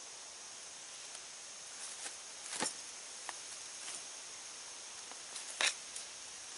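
Short crackling rustles of hands and gear being handled, with two sharper crackles about two and a half and five and a half seconds in, over a steady high hiss of insects in summer woods.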